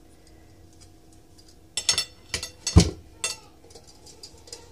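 Dishware clinking and knocking on a ceramic plate as a steamed cake is set onto it: a few sharp clinks about two seconds in, then a heavier knock with a dull thump near three seconds.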